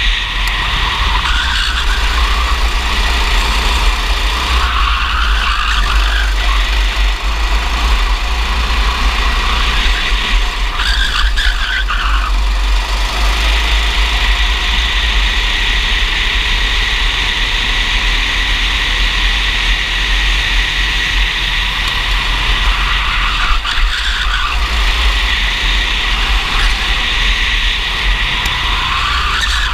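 Racing go-kart's engine running hard under the seat, recorded from the kart itself, with a heavy wind rumble on the microphone. The engine note rises and falls several times as the kart brakes for corners and accelerates out of them.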